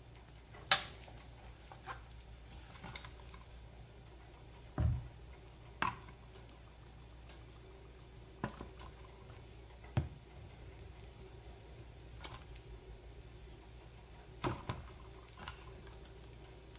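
Scattered sharp clicks and light knocks of objects being handled, about a dozen spread irregularly, with a duller thump about five seconds in, over a faint low steady hum.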